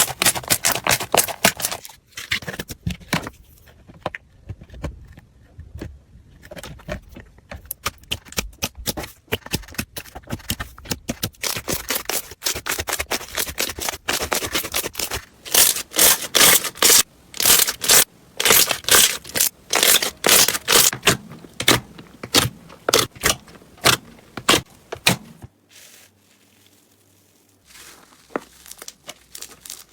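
Slime being squeezed and pressed by hand, giving rapid runs of crackling, popping clicks, with a short pause near the end.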